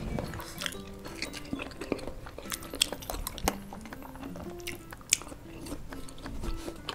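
Close-miked chewing and crunching of crispy fried chicken pieces, with wet mouth clicks, over soft background music.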